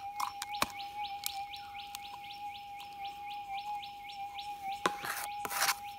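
A bird calling in a rapid run of short rising chirps, about four a second, over the Minelab GPX 6000 metal detector's steady hum. Near the end come two loud bursts of soil shifting in a plastic scoop as it is shaken over the coil, with no signal from the detector.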